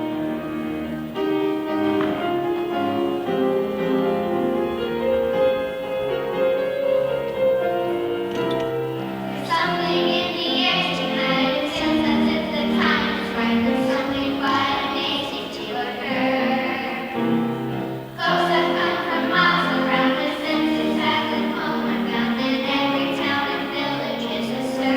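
A choir singing a Christmas musical number with instrumental accompaniment. The first several seconds are mostly accompaniment; the voices come in about ten seconds in, drop out briefly near eighteen seconds, then resume.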